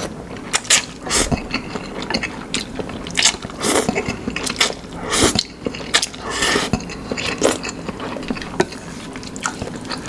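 Close-up eating sounds: instant noodles being slurped and chewed, with irregular wet mouth clicks and a few short slurps.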